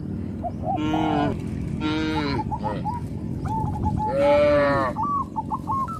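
Cattle mooing: three drawn-out calls, the last and loudest about four seconds in. A bird repeats a short chirping note about twice a second through the second half.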